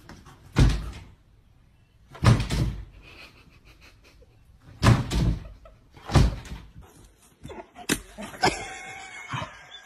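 A closed interior door being thumped four times, a couple of seconds apart, as a small dog bumps against it with its head. Each hit is heavy and deep, with a short rattle. About seven seconds in, softer, busier sounds take over.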